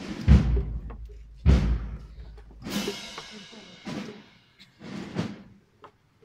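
Processional drums beating a slow, steady march, about one beat every second and a bit, the first two beats deep bass-drum booms. A bright metallic crash rings out about halfway through.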